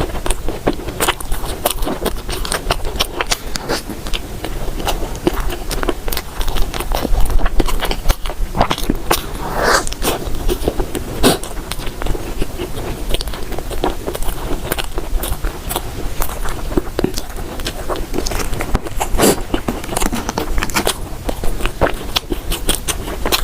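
Close-miked eating sounds: a person biting and chewing bread, with many small crackles and rustles throughout.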